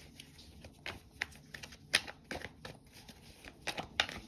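A deck of tarot cards being shuffled by hand: irregular soft clicks and flicks of cards against each other, the sharpest about two seconds in and again near the end.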